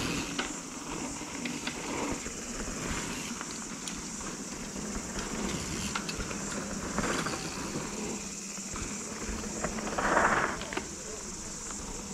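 Mountain bike running down a dirt trail, heard from a helmet or bike-mounted action camera: tyre and wind noise with scattered rattles and knocks from the bike, and one louder burst about ten seconds in.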